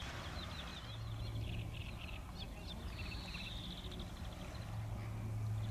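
Small songbirds chirping and trilling, with quick repeated high notes; a low hum swells in the background twice.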